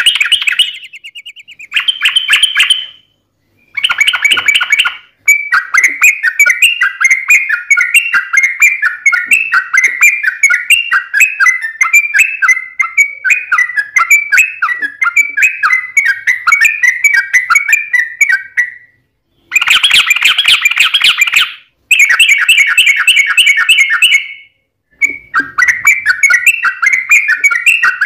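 Yellow-vented bulbul singing loud, fast, bubbling chattering phrases. A long unbroken run of about thirteen seconds sits between short, sharp bursts of song before and after it.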